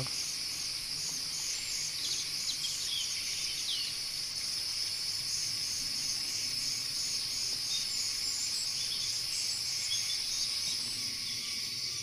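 A steady, high-pitched chorus of forest insects with an even pulsing rhythm, and a few faint, short bird chirps over it.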